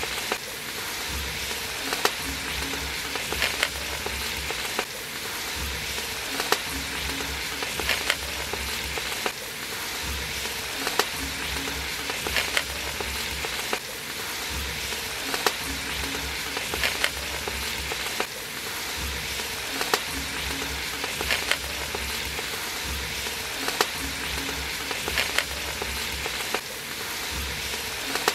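Sliced onions sizzling in hot oil in an aluminium pot. A perforated metal ladle stirs them, knocking and scraping against the pot about every one and a half seconds.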